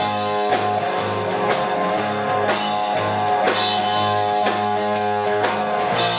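Rock band playing an instrumental passage between sung verses: guitar over a steady drum kit beat.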